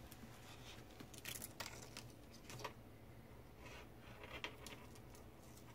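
Faint handling noises: a few light, scattered clicks and rustles of small parts being worked by hand, over a quiet room.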